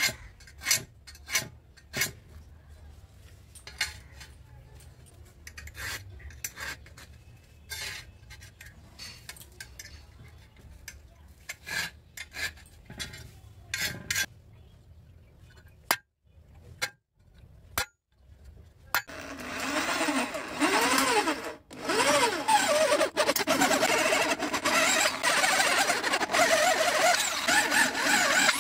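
Sharp clicks and light scratches as a combination square is set down and a rusty steel box-section tube is marked out. About two-thirds of the way in, a power drill starts boring into the steel: a loud, continuous grinding whir with a few wavering whines as the bit cuts.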